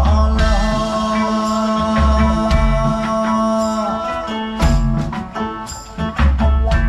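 A band playing an instrumental passage without vocals: long held melody notes over a heavy bass, with drum hits coming in during the second half.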